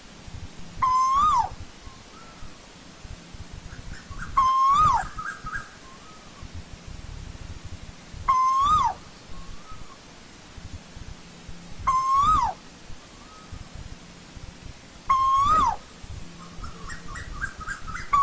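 Asian koel calling: a loud whistled note, each under a second, rising a little and then dropping sharply, repeated five times about every three and a half seconds.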